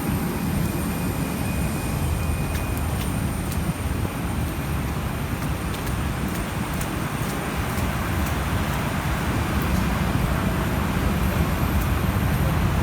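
Steady low rumble inside a jet airliner's cabin as the aircraft taxis with its engines running.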